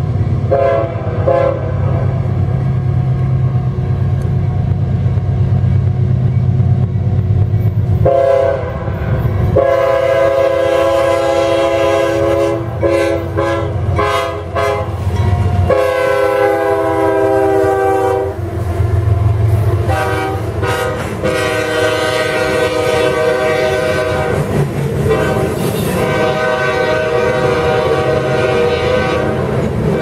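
Freight locomotive's air horn played in a long, varied sequence of long and short blasts, over the rumble of diesel engines and wheels clacking on the rails as the locomotives pass. The first eight seconds are mostly engine rumble with a couple of short toots. After that the horn sounds almost without pause.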